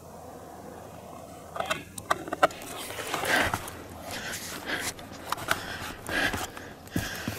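Footsteps crunching over the forest floor, with handling noise from a handheld camera. They start about a second and a half in as irregular sharp crackles and scuffs.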